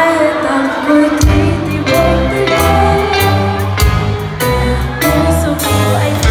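A live pop band playing through the PA: a female singer's voice over guitar, with bass and drums coming in about a second in.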